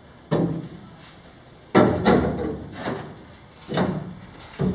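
Steel roll-cage tube knocking and thudding against the cage as it is fitted into place in a stripped car body: four separate knocks, each dying away over a moment.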